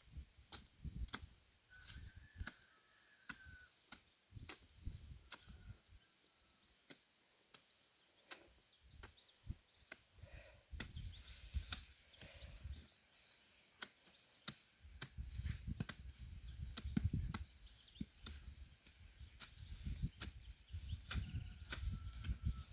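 Repeated strikes of a digging tool into soil while potatoes are dug up: irregular sharp chops, about two a second, with heavier dull thuds in the later part. A bird calls faintly about two seconds in.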